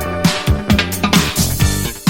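Instrumental disco-funk music with a steady beat of about four hits a second, each a low note that drops quickly in pitch, over sustained chords.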